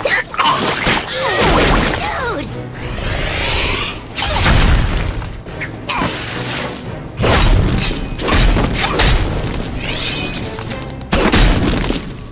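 Animated action-scene soundtrack: dramatic background music under a run of booms, thuds and crashing impact effects.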